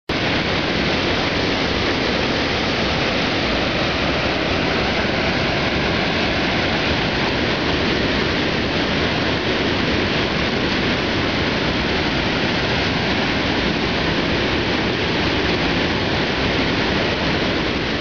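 Steady rushing of water spilling over a river weir, an even roar with no breaks.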